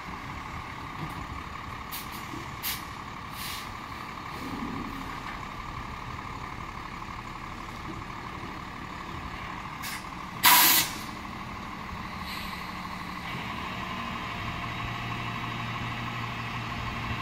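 Dump truck running steadily with its bed raised, tipping a load of mulch, with a steady whine over the engine. About ten seconds in there is one short, loud burst of air hissing.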